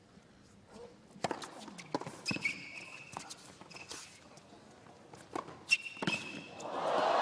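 A tennis rally on a hard court: sharp racket strikes and ball bounces a second or so apart, with short squeaks of tennis shoes on the court twice. Crowd noise swells up near the end.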